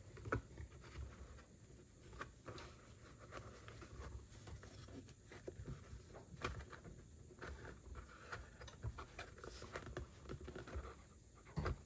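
Faint scratching, rustling and small clicks as fingers push cross-stitch fabric's serged edges into a picture frame around its backing board.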